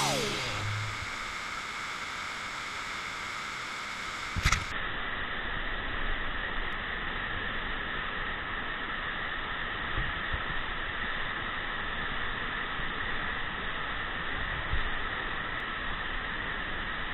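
Steady rush of a waterfall pouring into a rock pool in a canyon. There is a sharp click about four and a half seconds in, after which the rush sounds more muffled.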